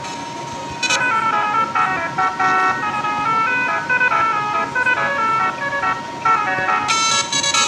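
Telolet bus horn, a set of multi-tone electric horns, playing a quick melody of short notes that step up and down, over a steady high tone.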